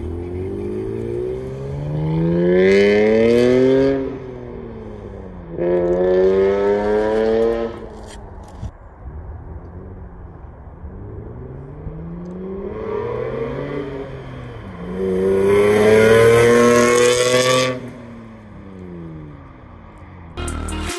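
2004 Hyundai Tiburon GT's 2.7-litre V6 with a full aftermarket exhaust, loud and accelerating hard past. There are three full-throttle pulls, each climbing steeply in pitch and cutting off suddenly on the shift or lift. Between them are quieter stretches where the engine note sags and climbs again.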